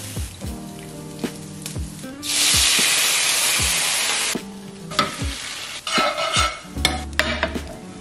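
Garlic frying in oil in a nonstick frying pan, sizzling, with a metal utensil clicking and scraping against the pan. About two seconds in, a much louder sizzle sets in for about two seconds, then cuts off, leaving utensil knocks and a lighter sizzle.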